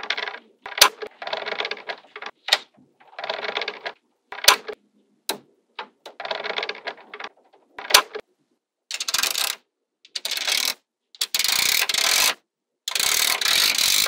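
Small magnetic balls being handled: rattling bursts about a second long, with single sharp clicks between them as balls snap together. From about nine seconds in, the rattling bursts get brighter and longer.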